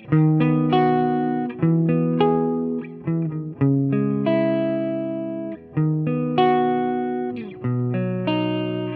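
Electric guitar, a Gibson SG, played clean through a Fender Deluxe Reverb Reissue tube amp with the amp's own spring reverb. Single notes and chords are picked about once every half second to a second, each ringing out and fading.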